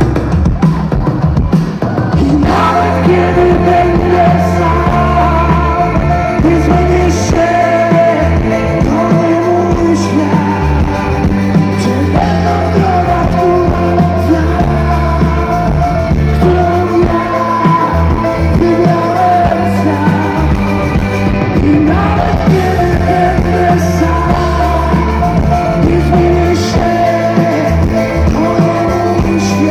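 Live rock band with a male lead singer, heard from the audience through the festival PA: long, held vocal lines over bass, keyboards and drums.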